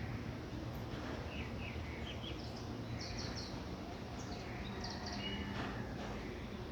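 Birds chirping in short, quick calls, several in a row through the middle, over a steady low background noise.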